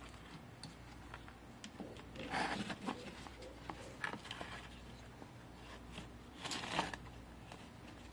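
Nylon knife sheath being handled, its snap strap worked open: fabric rustling with scattered small clicks and two louder scuffs, one a couple of seconds in and one near the end.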